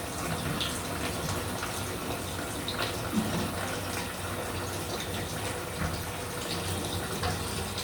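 Mains water running steadily from an open flexible connector into a bucket, because the seized stop cock won't fully shut off the supply. A few light clicks of metal on metal as a fitting is tightened.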